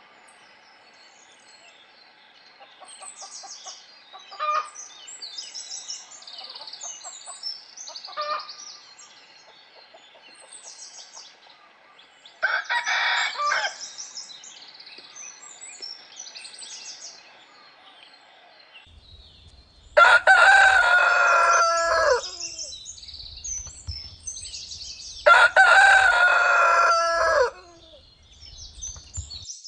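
A rooster crowing twice, each crow about two seconds long and the loudest sound, among softer short calls and small bird chirps.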